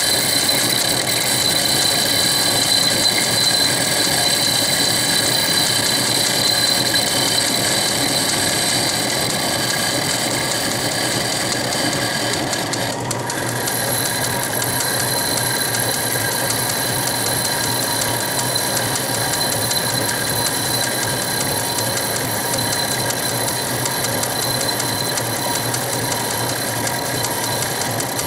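South Bend 10-inch Heavy lathe running with a steady mechanical whir of its gearing, its round-nose tool cutting a taper on a spinning metal bar as the compound rest is hand-fed at a constant rate. The sound dips briefly about halfway through.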